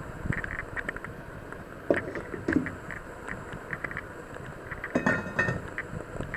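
Cookware being handled: a stainless steel steamer insert and pots knocking and clinking, with sharper metal clinks about two seconds in and around five seconds in, over scattered light ticks.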